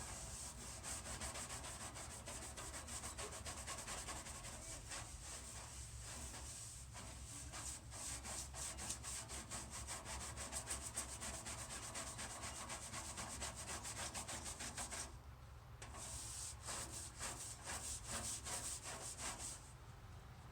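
Hand sanding the weathered surface of an old toolbox in rapid back-and-forth strokes, the prep stage of a refurbish. The strokes pause briefly about fifteen seconds in and stop shortly before the end.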